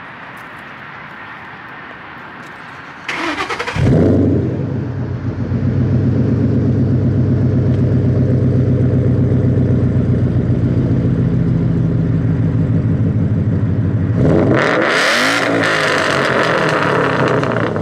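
Ford Mustang GT's Coyote V8 cranked on the starter about three seconds in, catching with a brief flare and then idling steadily. Near the end it is revved once, the pitch rising and falling over about two seconds, before settling back to idle.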